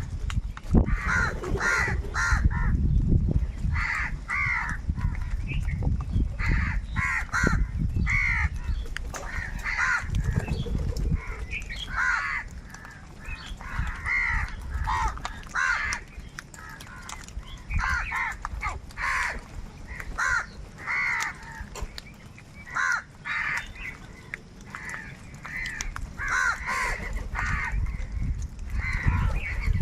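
A large flock of crows cawing, many harsh calls repeating and overlapping, with a low rumble under the first twelve seconds or so.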